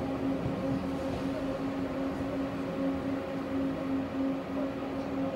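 Interior sound of a tram car: a steady rumble with a constant humming tone running through it.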